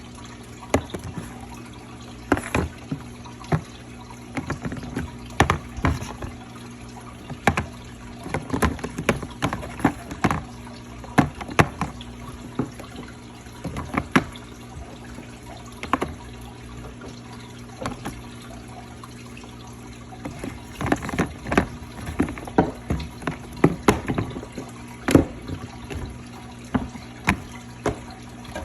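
Old, partly dried-up slime being squeezed and mixed by hand, making irregular wet clicks and pops in quick clusters, with a quieter spell about two-thirds of the way through.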